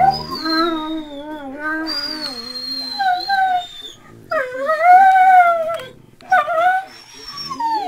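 Dog howling and whining in a string of long calls that waver up and down in pitch, about five of them with short breaks between.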